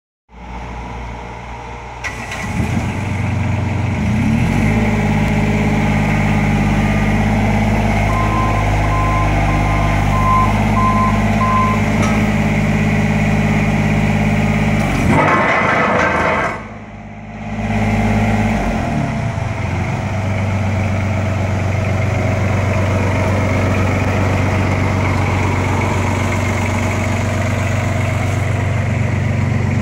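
Ammann AV20-2 tandem roller's diesel engine running: it revs up a few seconds in and holds a steady speed. A short series of beeps sounds for about four seconds. Past the middle the revs fall away and dip briefly, then build back up to a steady run.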